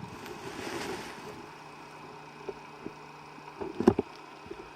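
Faint rustling over a steady low hum, with a few small clicks and a brief cluster of louder knocks about four seconds in.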